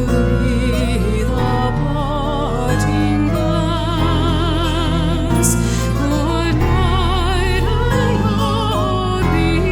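Slow folk ballad music: a melody with vibrato over held low notes that change about once a second, in a passage between sung verses.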